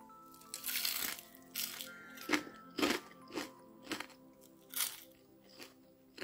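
A string of sharp crunches from crispy deep-fried potato rings being bitten and chewed, about nine of them at irregular intervals, over soft background music.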